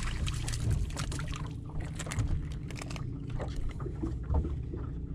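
Wind buffeting the microphone and small waves slapping a boat hull, with quick splashes and clicks as a small largemouth bass is reeled to the side of the boat and swung aboard, and a duller knock about four seconds in.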